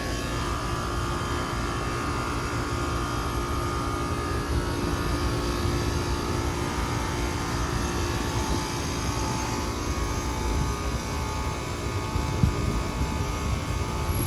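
Outdoor condensing unit of a 5-ton Trane XR14 central air conditioner running: compressor and condenser fan making a steady hum with a few constant tones over a low rumble. A single brief tap about twelve seconds in.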